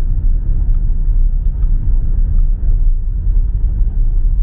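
Steady low rumble of a car on the move, heard from inside the cabin: road and engine noise with no distinct events.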